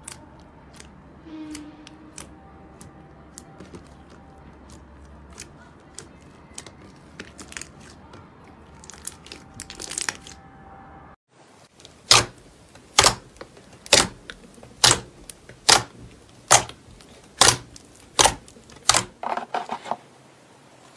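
Thick slime squeezed and kneaded by hand, with soft sticky crackles and small clicks. After a brief break, about ten loud, sharp snaps follow, evenly spaced about a second apart.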